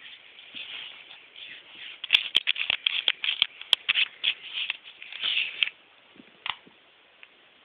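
Pestle scraping and tapping in a mortar as fresh mint leaves are crushed, busiest in the middle with several sharp clicks, then one tap and much quieter near the end.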